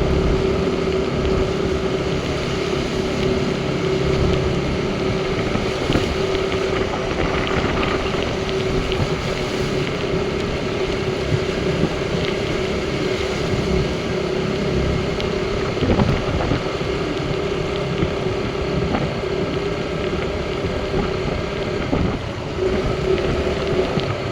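Motorcycle running at a steady speed while being ridden, a steady engine drone with wind rushing over the microphone.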